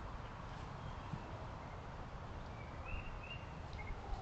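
Woodland ambience through a trail camera's microphone: a steady hiss, with a few short bird chirps about three seconds in.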